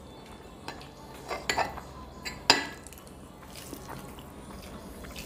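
Tableware clinking: a spoon and bowls knocking against plates on the table. There are several light clinks, and the loudest, about two and a half seconds in, rings briefly.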